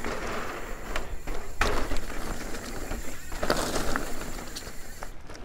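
Steel hardtail mountain bike rolling over a wooden bridge's planks and onto a dirt trail: steady tyre and trail noise broken by several sharp knocks and rattles from the rigid bike over the bumps.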